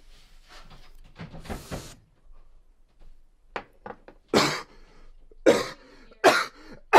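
A person coughing hard after taking a hit of marijuana: a run of loud, separate, rasping coughs that starts a little past halfway. Before it there is a short breathy noise.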